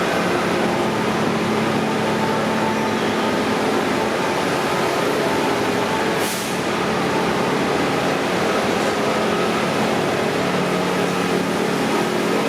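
Otis escalator running, a steady mechanical hum with several steady tones. A brief hiss comes about six seconds in.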